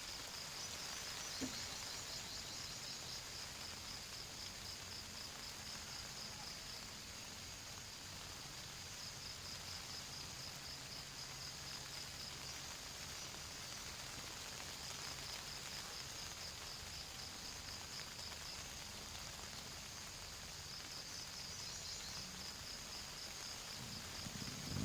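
Faint night ambience: a steady hiss of rain with insects trilling in repeated high pulsing stretches, and one small tick about a second and a half in.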